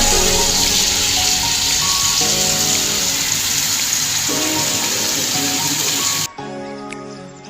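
Food sizzling in hot oil, a steady hiss, over background music; the sizzle cuts off suddenly about six seconds in, leaving only the music.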